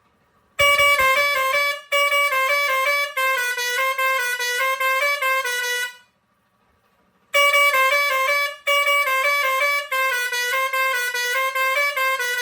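Six-trumpet steel digital musical air horn playing a short tune of quick stepped notes, then the same tune again after a pause of about a second and a half.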